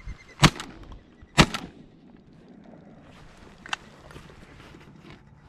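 Two shotgun shots about a second apart, fired at passing ducks, followed a couple of seconds later by a single light click.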